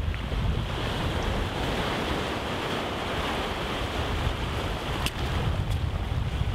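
Surf washing over a rocky shore, with wind buffeting the microphone in a low rumble.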